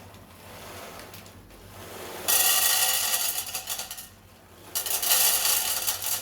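Two stretches of a steady rushing pour into a pot while peas are being washed: the first about two seconds in, lasting a second and a half, and the second after a short pause. Before them comes quieter clinking of pot and utensils.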